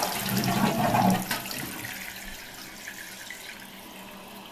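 Toilet tank flushing: water gushes and gurgles out through the open flush valve for about the first second, then gives way to a steady hiss as the fill valve refills the tank.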